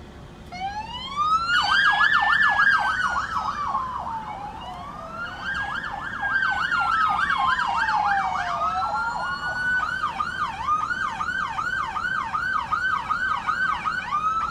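Police car siren sounding: a slow wail rising and falling about every four seconds, overlaid by a fast warbling yelp. About ten seconds in the wail holds on a high note while the rapid yelp keeps going.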